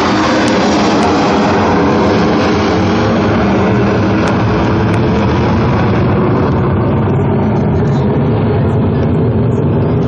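NASA C-9 (a military DC-9) climbing away after takeoff, its twin JT8D turbofan jet engines running loud and steady. The hissing top of the jet noise fades from about seven seconds in as the plane draws away.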